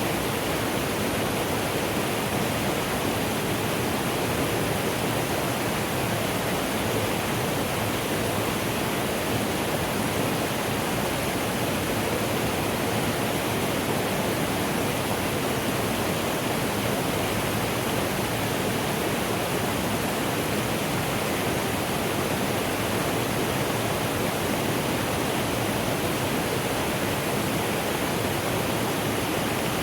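Mountain stream flowing over rocks: a steady, even water noise that does not change.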